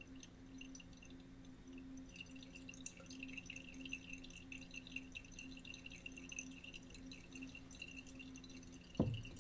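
Faint steady electrical hum with a thin high whine. A short knock comes near the end.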